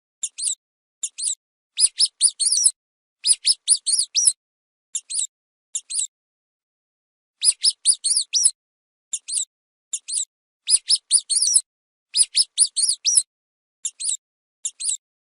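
Mouse squeaking: short, high-pitched squeaks in quick runs of two to six, with brief silent pauses between the runs.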